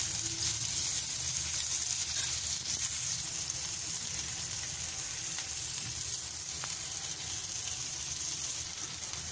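Small chicken pieces with onion and garlic sizzling in butter in a steel frying pan, a steady hiss as the chicken fries until it changes colour.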